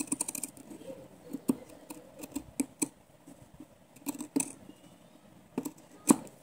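Large steel scissors snipping through folded fabric, trimming it into a round shape: a series of short, sharp snips at irregular intervals, the sharpest near the end.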